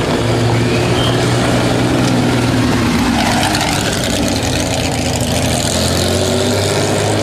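Porsche 911 rally car's air-cooled flat-six engine running at low revs as the car creeps through a slow corner. The steady note dips slightly about three-quarters of the way in, then picks up again.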